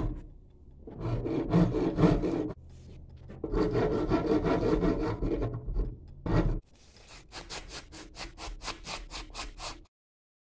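Hand file drawn along the edge of a steel falchion blade clamped in a vise, sharpening it: two long scraping passes, then a run of short quick strokes, about five a second.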